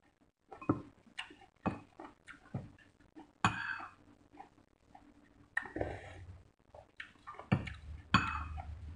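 Spoon and chopsticks clinking and scraping against porcelain bowls while eating, in a string of sharp clinks at uneven intervals, the loudest about three and a half seconds in and near the end.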